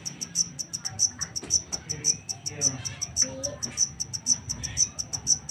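Black cricket chirping steadily, a high-pitched chirp repeating about six times a second.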